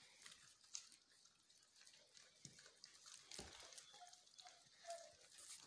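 Belgian Malinois puppies scrambling on a concrete floor: faint scattered clicks and scratches of their claws, with a couple of faint short squeaks about four and five seconds in.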